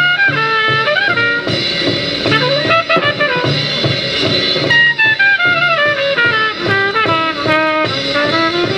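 Live 1947 bebop jazz by a quintet of trumpet, alto saxophone, piano, bass and drums, played back from a record on a turntable. Fast horn lines run over the rhythm section.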